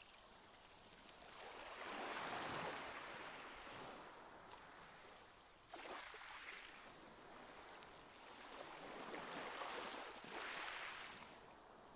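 Water lapping and sloshing in a pool, coming in soft swells every few seconds, with a sudden louder rise about six seconds in.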